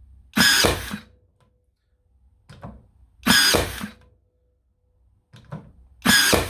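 Ryobi One+ 18V 16-gauge cordless nailer firing three nails into wood, about three seconds apart, each a short whir and bang, with a faint hum lingering after each. The power setting is turned up, so the nails are driven in really deep.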